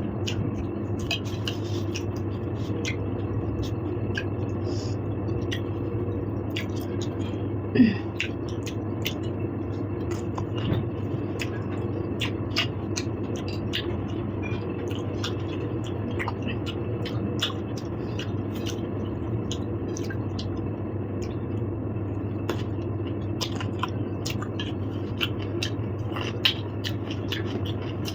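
Eating sounds: cutlery clicking and scraping against dishes, with chewing, as small irregular clicks over a steady low hum, and one louder clink about eight seconds in.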